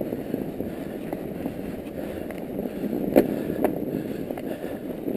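Mountain bike rolling through fresh snow: a steady low rumble of tyres in snow and the bike rattling. Two sharp clicks come a little over three seconds in.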